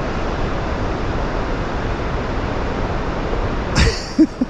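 Waterfall rushing: a steady, even roar of falling water. A brief breathy sound comes near the end.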